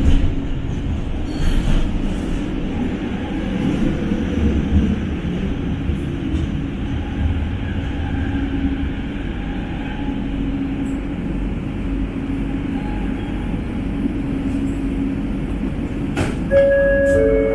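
Bombardier Innovia ART 200 train heard from inside the car while running: a steady wheel rumble with a low hum from its linear induction motor propulsion. About a second before the end, a two-note tone sounds, the second note lower.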